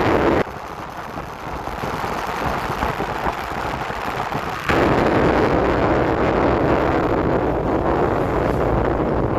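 Wind noise on the microphone over a low vehicle rumble. The level drops abruptly about half a second in and comes back up just before five seconds.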